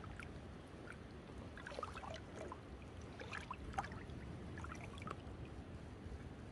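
Faint sloshing and light splashing of rubber boots wading through shallow tide-pool water, a few irregular splashes in the middle, over a low steady rumble.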